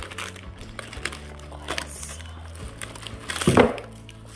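Tissue paper crinkling and rustling as it is handled and pulled away from a glass globe, with a louder crumpling burst about three and a half seconds in.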